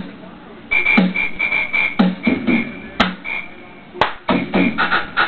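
Background music beat: a low drum thump about once a second with lighter hits between, and a high note repeating in short pulses over it.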